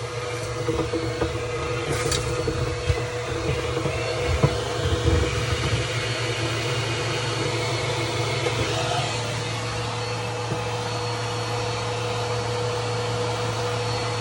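Vacuum cleaner running steadily, sucking lint and dirt out of a clothes dryer's vent, with scattered clicks and knocks in the first half.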